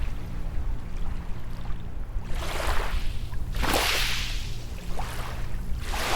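Small waves breaking and washing up a sandy beach: three swelling, hissing washes, the loudest near the middle, over a steady low rumble of the surf.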